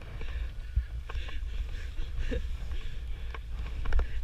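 Wind buffeting an action-camera microphone with a steady low rumble, over scuffs and several sharp clicks of ski gear being handled in the snow after a fall, the loudest about four seconds in.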